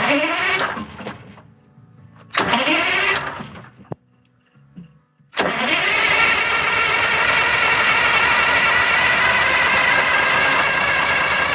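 Vintage bus's diesel engine being started from the rear. Two short tries rise in pitch and die away, then about five seconds in it catches and keeps running steadily.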